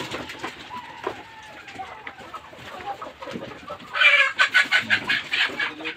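A mixed flock of Brahma, Australorp and tiger chickens clucking, then about four seconds in one bird breaks into a loud, rapid run of squawks that lasts about a second and a half.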